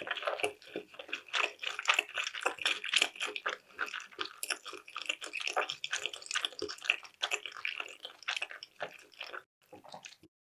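Close-miked chewing of sushi: a dense run of wet, squishy mouth clicks and smacks that stops suddenly near the end.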